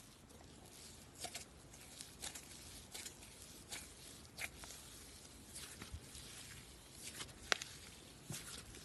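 Slime being handled, squeezed and stretched: faint, irregular sticky clicks and pops, a couple each second, with one sharper pop near the end.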